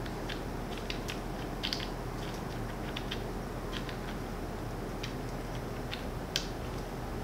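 Black iron pipe fittings being screwed together by hand: scattered small metallic clicks and thread scrapes, the sharpest near the end, over a steady background hum.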